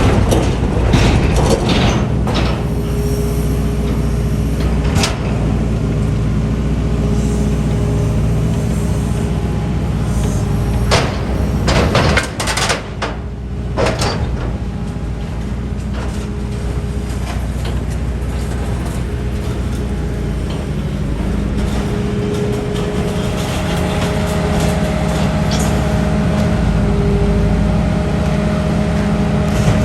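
Liebherr A934C wheeled excavator's diesel engine running steadily, with several sharp metallic knocks about halfway through.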